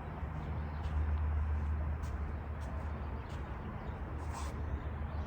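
Steady low rumble with short, high bird chirps every second or so.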